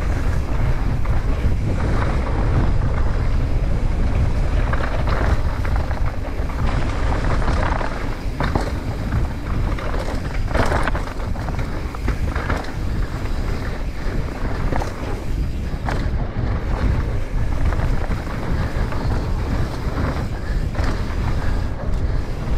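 Wind buffeting a mountain-bike action camera during a fast dirt-trail descent, with tyre noise on dry dirt and the bike (a Commencal Meta AM 29) chattering and knocking over bumps.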